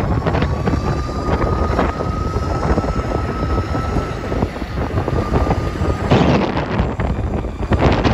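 Wind buffeting the microphone and wheels rolling over asphalt during a ride on an electric skateboard. A faint steady whine runs underneath and stops about six seconds in, where the wind noise briefly grows louder.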